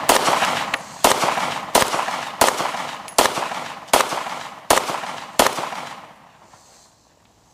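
Taurus PT-809 9mm pistol fired in a steady string of about eight shots, roughly one every three-quarters of a second, each shot trailing off in a short echo. The string stops about five and a half seconds in.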